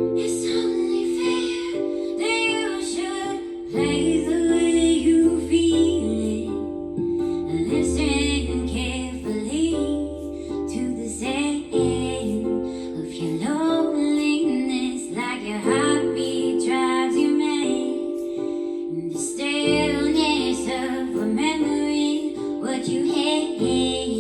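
Music: a woman singing over a plucked-string accompaniment.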